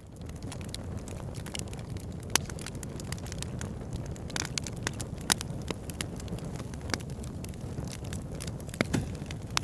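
Firewood burning in a campfire: an irregular crackle of small pops over a steady low rumble, with a few sharper, louder pops now and then.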